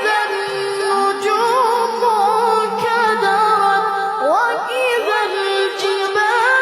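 Wordless a cappella vocal melody: held, wavering notes with slides up and down in pitch, over a steady sustained tone.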